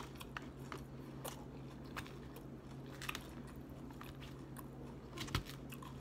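Mouth chewing and crunching salad greens, with scattered sharp clicks of a plastic fork against a clear plastic clamshell container. A low steady hum runs underneath.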